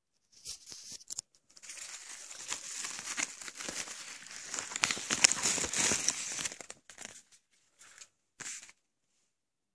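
Yellow padded kraft mailer envelope being handled and turned over, its paper and padding crinkling and rustling for about seven seconds, then a short rustle near the end.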